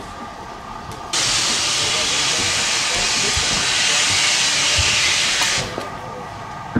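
Steam locomotive venting a blast of steam: a loud, steady hiss that starts suddenly about a second in and cuts off after about four and a half seconds.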